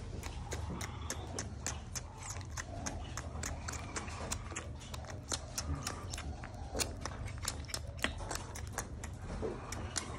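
Baby raccoon suckling on a bottle's rubber nipple: a fast, irregular run of sharp clicks and smacks, several a second, over a steady low hum.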